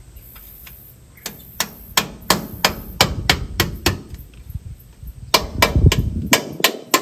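Hammer striking the metal of an International 766 tractor's transmission housing: a run of about nine sharp blows, roughly three a second, a pause of over a second, then about six more.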